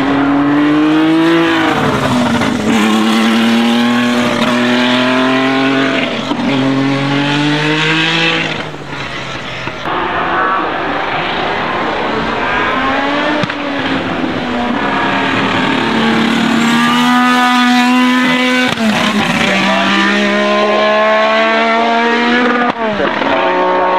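Renault RS10's 1.5-litre Gordini-Renault twin-turbo V6 racing engine accelerating hard, its pitch climbing through each gear and dropping sharply at every upshift, repeated over several runs.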